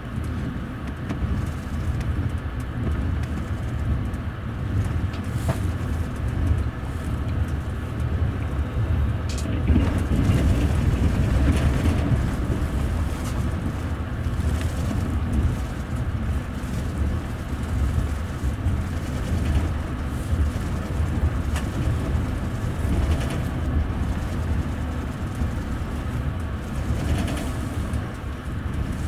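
Steady rumble of a double-deck passenger coach running along the rails, heard from inside on the upper deck, with wheel and rail noise. The noise swells for a few seconds around ten seconds in.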